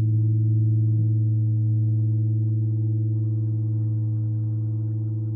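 Computer-generated ambient music: a drone of several sustained, pure low tones, fading slowly, with soft new notes entering now and then. It is produced in real time by software from the room's light level as read by a photoresistor.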